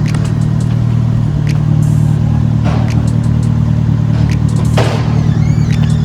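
A motor vehicle's engine running steadily: a continuous low drone, with a few faint clicks over it.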